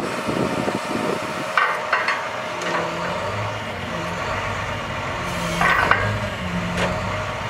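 International MaxxForce DT diesel running the Altec digger derrick's hydraulics as the auger and boom are moved, its note shifting, with a few short knocks about one and a half seconds in and again about six seconds in.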